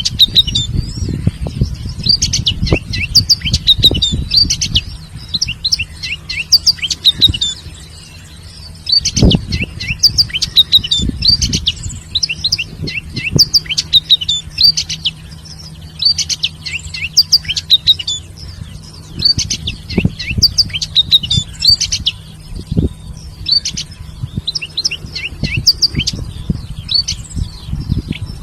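Many small birds chirping together in quick, high-pitched bursts that barely pause, over a scatter of low thumps and rustles.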